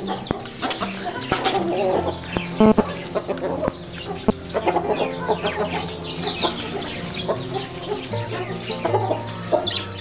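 Hens clucking as they feed on scattered grain, with many quick taps of pecking.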